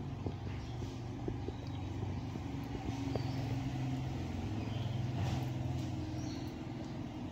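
A steady low mechanical hum, like a motor running nearby, with faint short clicks of a kitten chewing a scrap of food.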